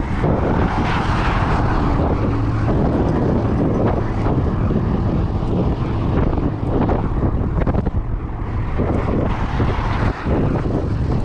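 Strong wind blasting across the microphone: a loud, continuous, rumbling buffet without any clear pitch.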